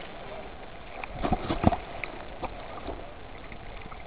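Choppy sea water sloshing and lapping around a camera at the surface, heard muffled through its waterproof housing, with a few small splashes about a second and a half in.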